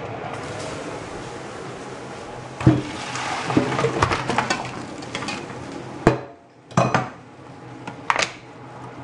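A pot and utensils clattering and knocking as cooked pasta is handled on the stovetop, with scattered sharp knocks over a steady background hiss.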